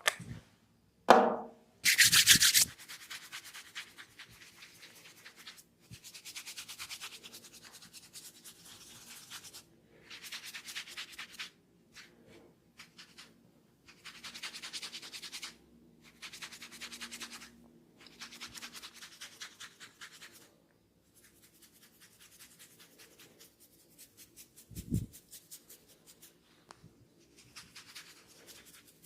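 Hands rubbing and scrunching a woman's hair, making a crackling rasp in repeated bursts of one to two seconds with short pauses between; this is hair cracking. Near the end there is one low thump.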